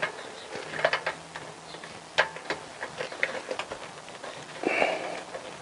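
Irregular light clicks and ticks of plastic wiring-loom connectors and cables being handled and pushed into place on a motorcycle frame, with a brief louder rustle near the end.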